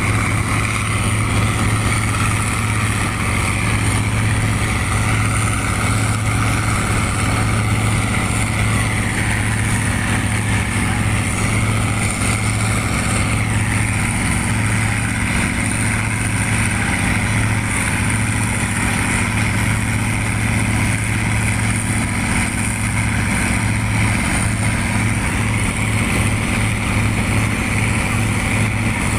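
Motorboat engine running steadily at speed with a constant low drone, and water rushing along the hull.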